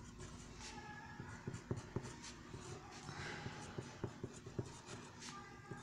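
HB pencil writing on paper: faint scratching with many short taps as each character is stroked out.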